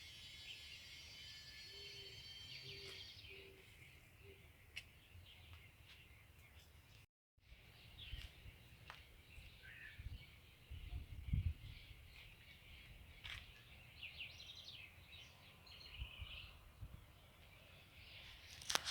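Small birds chirping faintly, a dense overlapping chorus for the first few seconds that thins to scattered short calls. The sound cuts out completely for a moment about seven seconds in, and a few low thumps come in the second half.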